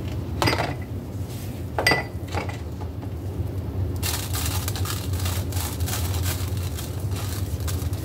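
Two light clinks of dishes, about half a second and two seconds in, then steady rustling and crackling from about four seconds on as gloved hands press shredded coconut onto a chocolate-coated fruit pop over a paper plate. A low steady hum runs underneath.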